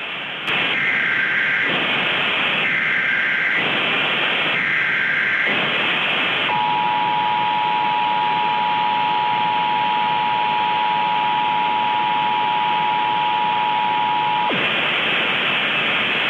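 Mock Emergency Alert System tones over loud static hiss: three SAME data-header bursts, each a warbling two-pitch screech about a second long with short gaps between, then the EAS two-tone attention signal, a steady dual tone held for about eight seconds before it cuts off. The static runs on after the tones stop.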